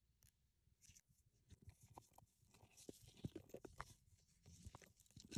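Faint handling sounds: small clicks and short rustles as items are moved about inside a leather handbag, starting about a second and a half in.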